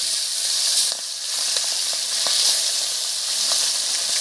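Whole pabda fish frying in hot mustard oil in a kadai: a steady sizzle with scattered small pops.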